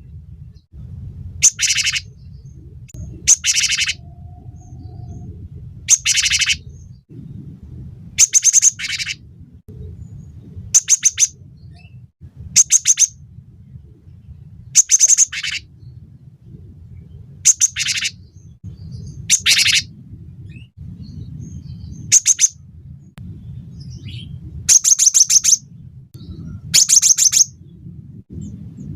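Cinereous tit (gelatik batu) singing: short phrases of rapid, high, repeated notes, about every two seconds, over a low steady background rumble.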